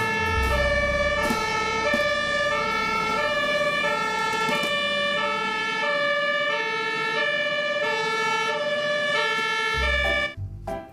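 Two-tone siren of a German airport fire truck, steadily alternating between a high and a low note, each held a little over half a second, over a low rumble that fades about halfway. It stops just before the end.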